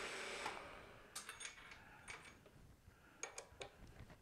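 Precision Matthews PM-727M mill-drill spindle running, then switched off and winding down about half a second in. A few light metal clicks follow as the drill chuck is loosened by hand to remove the bit.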